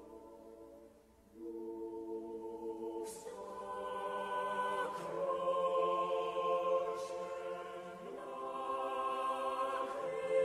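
Choir singing slow, sustained chords, the harmony shifting every couple of seconds. It fades almost away about a second in before the next chord swells in.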